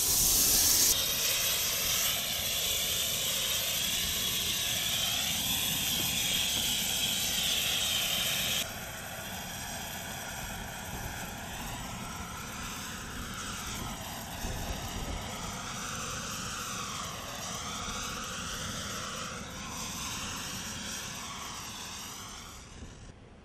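A steady, loud rushing hiss of air being forced out through cracks in a storm-damaged breakwater's stone wall as sea water surges into the hollowed pier beneath: the pier 'breathing'. About eight seconds in it drops to a quieter hiss that wavers and sweeps, from a hand-held red flare burning against the cracks.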